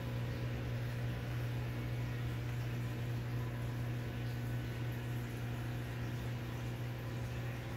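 Steady low mechanical hum over an even hiss from a large aquarium's running equipment.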